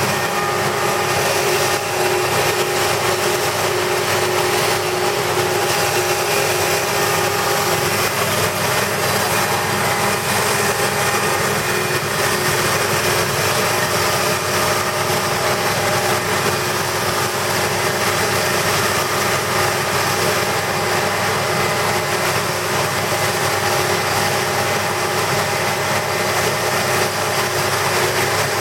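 Electric powder grinding machine running steadily: an even hiss with a constant hum and several steady whining tones, unchanging throughout.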